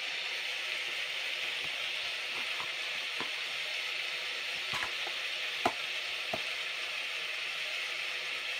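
Steady rain falling, an even hiss, with a few light clicks and taps over it, the sharpest a little before six seconds in.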